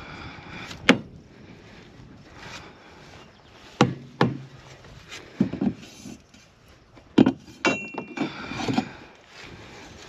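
A string of sharp knocks and clunks as tools and gear are handled around a side-by-side utility vehicle: one about a second in, then a cluster through the second half, with a short metallic clink among them.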